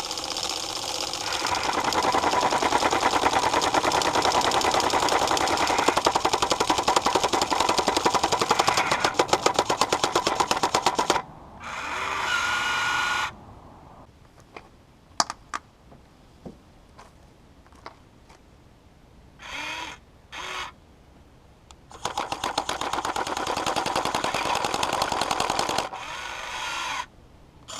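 Huina 1580 V4 RC excavator's jackhammer attachment, its nail-tipped bit hammering rapidly against ice in two long runs, about eleven seconds and then four seconds. Between the runs there are brief, even runs of a small motor and a few scattered ticks.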